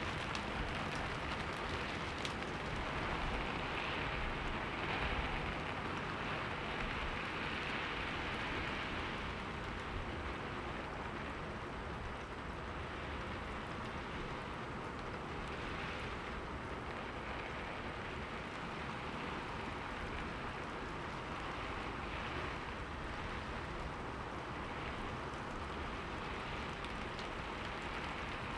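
Steady rain hitting a window pane: an even hiss with scattered sharper drop ticks, a little heavier in the first few seconds.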